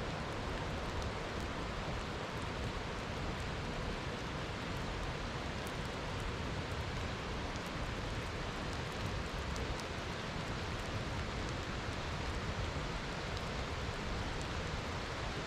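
Steady rainfall: an even hiss with faint scattered drop ticks.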